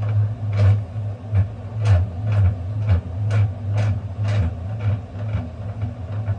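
Jobsite table saw's blade-height mechanism being worked, giving a short squeak or click about twice a second over a steady low hum; the mechanism is dry and needs oil.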